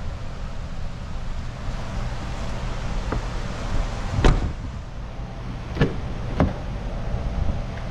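A steady low rumble with three sharp knocks, the loudest about four seconds in and two more close together nearly two seconds later.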